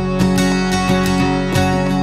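Background music led by strummed acoustic guitar, with an even, steady rhythm.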